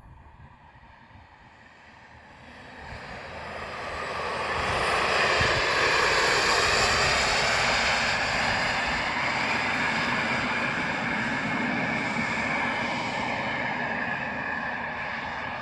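KingTech model jet turbine of an RC Rafale jet flying past: a steady whine and rush that swells over a few seconds, peaks, then slowly fades as it moves away.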